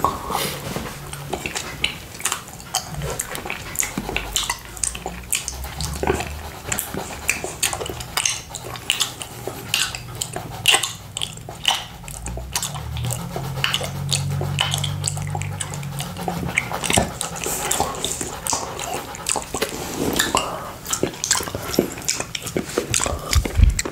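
Close-miked wet licking and lip smacking on a small glass plate coated in sticky buckwheat honey: a dense, irregular run of quick wet clicks and smacks.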